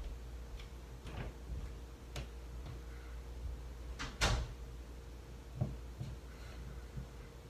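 Electro-etcher's felt pad worked over a stencil on a steel knife blade during AC marking: scattered crackles and clicks, the sharpest about four seconds in, over a steady low hum.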